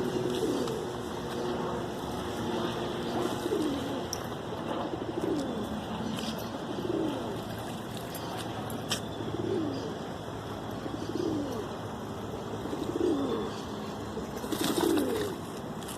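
Dove cooing: a low, downward-sliding note repeated about every one and a half to two seconds.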